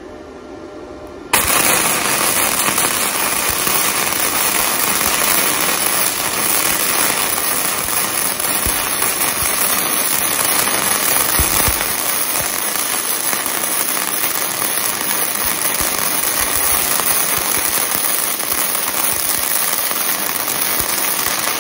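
Gasless flux-cored wire welding arc from a Weldinger MEW 180 miniSYN inverter welder, crackling steadily as a bead is run along steel plate. The arc strikes suddenly about a second in and holds without a break.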